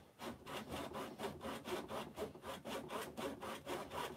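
Fine-toothed woodworking hand saw sawing back and forth in quick, even strokes, cutting into plywood, a material the saw is not meant for.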